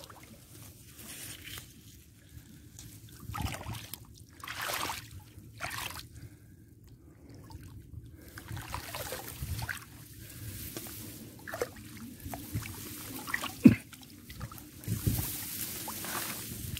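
Muddy water sloshing and splashing in irregular bursts as a person wades and works a fishing net in a flooded field channel, with one sharp splash or knock about three-quarters of the way through.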